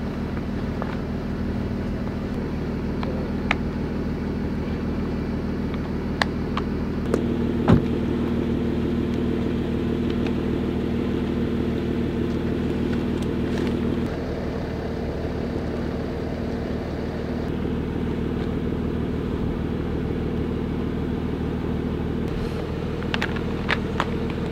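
A vehicle engine idling steadily, with a few sharp clicks over it.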